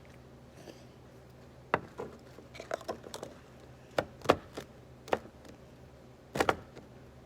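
Scattered sharp knocks and clicks, some in quick little clusters, from containers and utensils being handled and set down while making slime.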